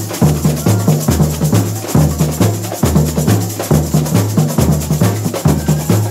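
Samba school bateria playing live: surdo bass drums beat out low notes alternating between two pitches under a fast, steady pattern of higher-pitched percussion strokes.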